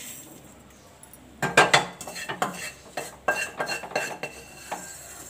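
A metal kadai knocking and clinking as it is tipped and tapped over a steel mixer jar to empty dry-roasted spices, then set back down on the cooktop. The first second and a half is quiet, then come a dozen or so sharp knocks with short ringing.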